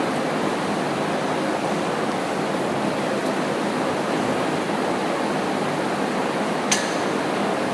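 Steady rushing background noise with one sharp click near the end.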